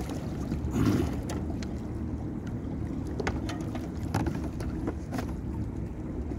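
Steady low rumble on a small fishing boat, with a few light clicks and knocks scattered through, one a little louder about a second in.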